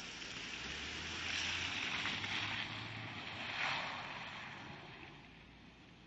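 Honda Accord V6 engine revving while its tyres spin and slide on snow, a rushing noise that swells and peaks about three and a half seconds in. The noise then fades as the car moves off.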